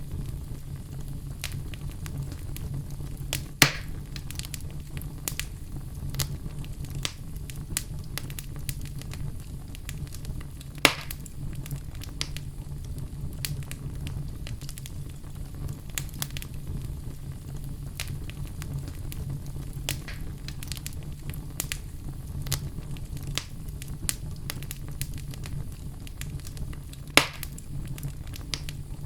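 Oak logs burning in a fireplace: a steady low rumble of flames with frequent small crackles, and three sharp, louder pops from the wood, about 4, 11 and 27 seconds in.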